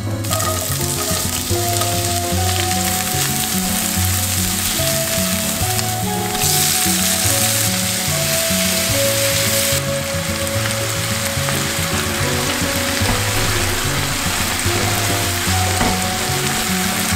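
Food sizzling in a frying pan: butter melting in hot oil, then chopped onion and tomatoes frying. The sizzle gets louder for about three seconds around the middle.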